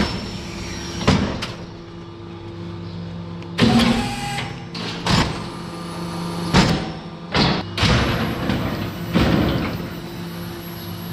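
Hydraulic Appleton Steel hoof-trimming crush working: a steady hum from its hydraulic power unit, with several sharp knocks as its steel gates and bars move and close.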